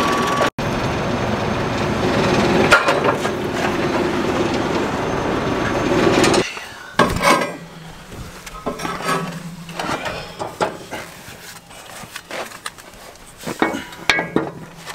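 An engine running steadily for about the first six seconds, then stopping abruptly; after it, scattered metal clinks and knocks of hand tools working on the steel disc gang of a vertical tillage implement.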